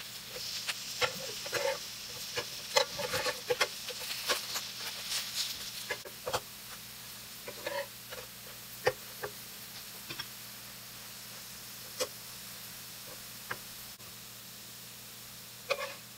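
Potato pancakes sizzling in oil in a nonstick frying pan, while a slotted spatula clicks and scrapes against the pan as they are flipped. The sizzle is strongest in the first half; after that come scattered sharp spatula clicks.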